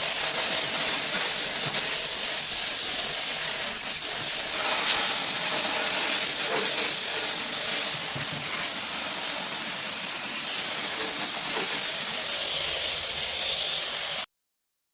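Pressurised spray hissing steadily, typical of a jet washing an air-conditioner unit during a chemical overhaul; it cuts off suddenly near the end.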